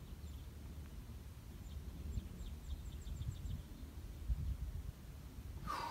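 Wind noise on the microphone, with a small bird's quick run of high chirps about two to three seconds in.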